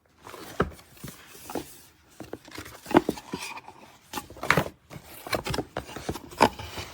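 Handling noise as a boxed car amplifier and its packaging are unpacked: rubbing and scraping with scattered sharp knocks, the loudest about three, four and a half and six and a half seconds in.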